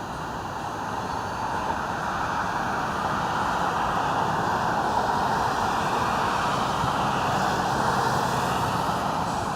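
Steady rushing noise, swelling gradually over the first few seconds and easing a little near the end.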